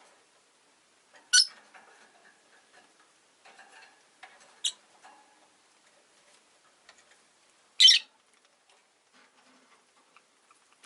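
Rosy-faced lovebirds giving three short, sharp, high-pitched calls a few seconds apart, with fainter soft chirps between them.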